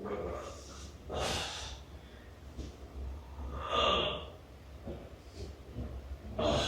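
A person breathing heavily through the nose: three loud breaths, each about half a second long and roughly two and a half seconds apart.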